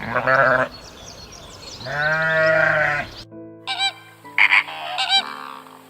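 A farm animal bleating twice, first a short call, then a longer wavering one. After a sudden cut, background music with steady tones comes in under several short high calls.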